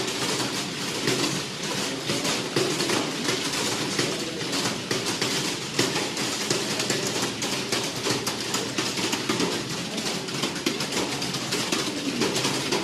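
Many computer keyboards clattering at once: dense, continuous key clicks from a room full of people typing.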